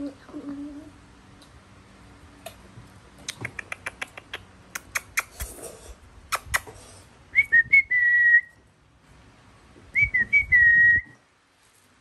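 Two short whistles at a steady high pitch, each opening with a quick warble, about two and a half seconds apart in the second half. Before them comes a run of sharp clicks and taps.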